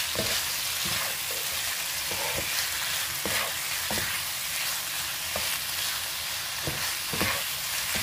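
Squid and vegetables sizzling in a frying pan over medium heat while the gochujang seasoning is stirred in, with irregular scrapes and clicks of the spoon against the pan every half second or so.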